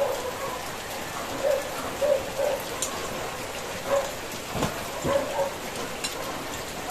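Steady rain pattering on a corrugated roof, an even hiss throughout, with a few short low sounds and faint clicks over it.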